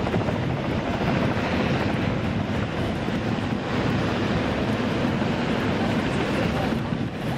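Combine harvesters running in the field: a steady machinery drone mixed with wind on the microphone.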